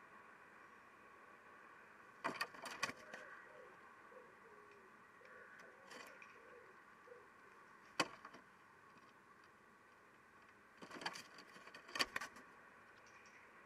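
Common kestrel landing and flapping at the edge of a nest box, its claws and wings knocking and scraping against the box in short clattering bursts. The bursts come about two seconds in, again near six, with the sharpest single knock near eight seconds and a last cluster around eleven to twelve seconds.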